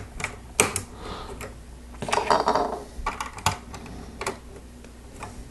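Plastic LEGO pieces being handled and pressed together: scattered sharp clicks, with a denser patch of clatter about two seconds in.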